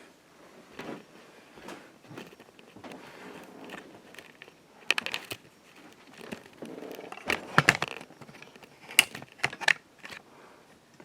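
Scattered clicks, knocks and rustling of handling, loudest in short clusters about five, seven and a half and nine seconds in.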